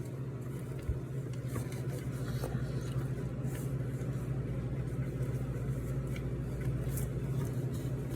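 Faint soft clicks of someone chewing a bite of plain bready donut, over a steady low hum.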